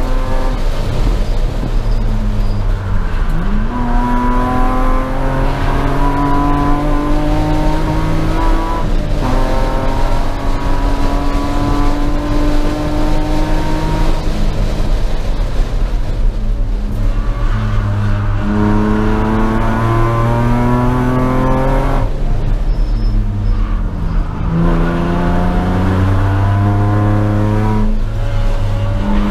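Race car engine heard from inside the cockpit, climbing in pitch as it pulls through the gears and dropping sharply at each shift, several times over, easing off between pulls.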